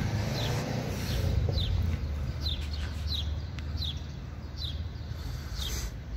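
A bird chirping over and over, short falling chirps about once a second, over a steady low rumble.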